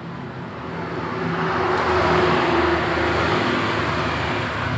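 A motor vehicle passing close by on the road: its engine and tyre noise swells to a peak about two seconds in and then eases off.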